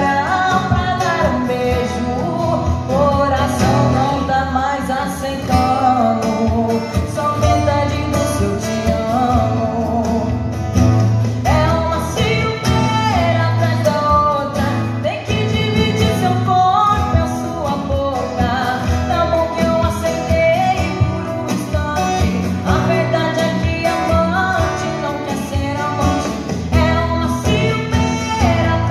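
A woman sings a sertanejo song live into a microphone, amplified, with a man accompanying her on acoustic guitar.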